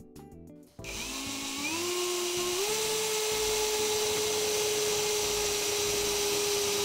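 Power drill driving a self-drilling screw into a steel strip: it starts about a second in, rises in pitch in steps over the next two seconds, then runs steadily. The screw's drill point is too short for the sheet thickness, so once through it keeps turning without the thread biting.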